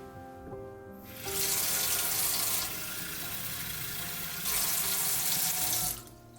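Tap water running into a sink: the stream comes on about a second in, runs softer in the middle for a couple of seconds, then is loud again and shuts off near the end.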